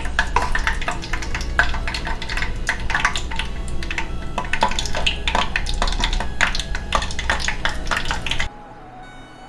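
A metal spoon clinking and scraping against a stainless steel bowl as thick batter is scooped and dropped into a pot of hot oil. About eight and a half seconds in it cuts off suddenly, leaving quieter background music.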